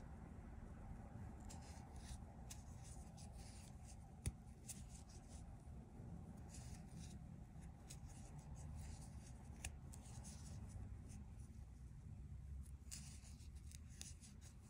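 Faint rustling and small scattered clicks of a crochet hook and acrylic-looking yarn being worked by hand, over low steady room noise, with one sharper click about four seconds in.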